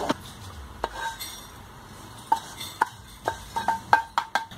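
Wooden spatula knocking against a nonstick pan as toasted sesame seeds are scooped out of it. A series of sharp taps with a short ring, coming faster in the second half.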